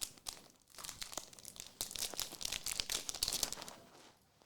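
Foil trading-card pack wrapper crinkling and tearing as it is handled and opened, a dense crackle for about four seconds that fades out near the end.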